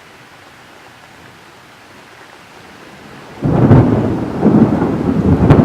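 Rain hissing steadily. About three and a half seconds in, a loud thunderclap breaks in suddenly and keeps rumbling, with a sharp crack near the end.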